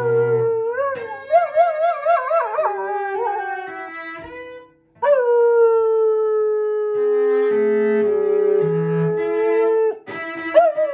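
A standard poodle howling along with a cello: a wavering, gliding howl in the first few seconds, then after a brief break a long howl that starts suddenly about five seconds in and slowly falls in pitch, with lower cello notes stepping down beneath it.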